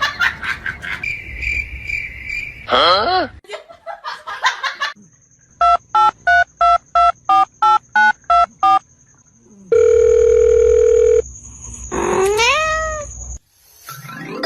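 Telephone-style tones: a run of about a dozen short, evenly spaced keypad beeps, then a steady dial-type tone lasting about a second and a half. Short calls sweeping up and then down in pitch come near the start and again near the end.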